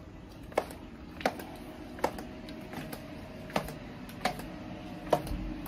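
Footsteps going down hard outdoor stairs, about six sharp clicking steps with a longer pause in the middle, over a faint steady hum.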